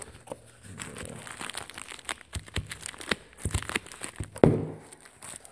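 Packaging being handled and torn open one-handed: crinkling and tearing with scattered clicks and scrapes, and a sharper knock near the end.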